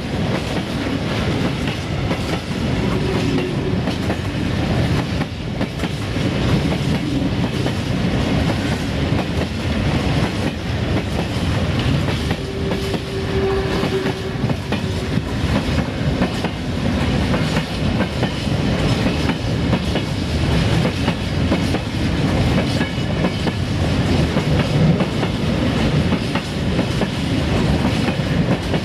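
Loaded freight train rolling past, its wagon wheels clattering steadily over the rail joints with a continuous rumble.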